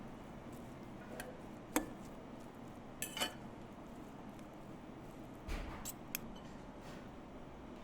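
A handful of short clinks and knocks of kitchen utensils and dishware being handled, scattered irregularly over a steady background hum.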